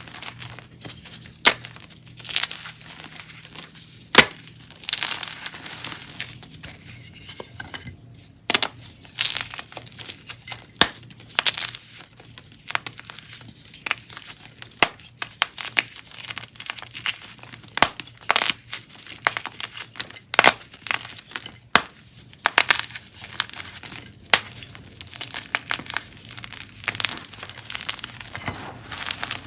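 Chunks and blocks of gym chalk being crushed, giving irregular crunches and sharp snaps with crumbling and crackling in between. The loudest snap comes about four seconds in.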